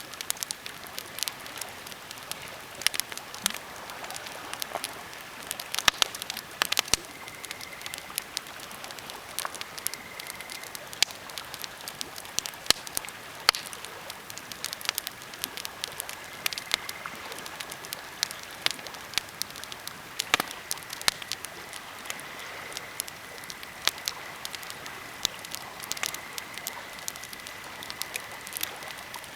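Birch and pine campfire crackling, with frequent irregular sharp pops over a steady hiss.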